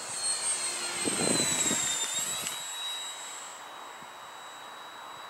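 A 70 mm electric ducted fan in a radio-controlled Hawk jet model on a 6S battery, whining high as it flies past. The whine grows louder, drops in pitch about two seconds in as the jet passes, then fades.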